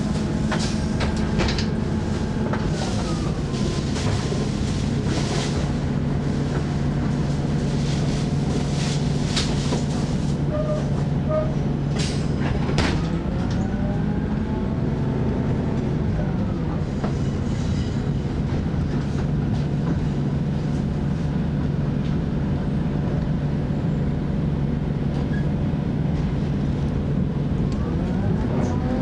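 Thai diesel railcar express running at speed: a steady engine drone whose pitch slides down and up a few times, with the wheels clicking over rail joints and junction points, most often in the first half and sharply about twelve seconds in.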